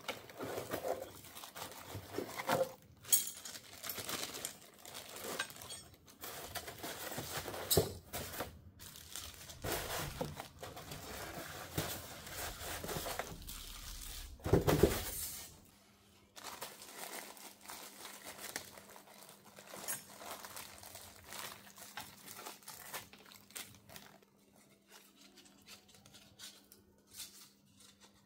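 Clear plastic packaging bags crinkling and rustling, with light knocks from sander parts handled against a polystyrene packing tray. The handling is busiest in the first half, with a loud rustle about halfway, then dies down to occasional soft rustles.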